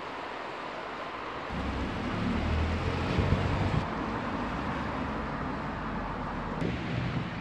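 Wind buffeting the microphone outdoors, an irregular low rumble that sets in about a second and a half in, over a steady background hiss.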